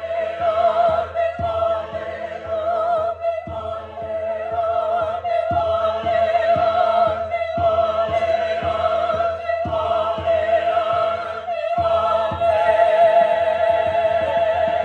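A choir singing a slow piece, with one high voice holding a wavering note over chords that change about every two seconds.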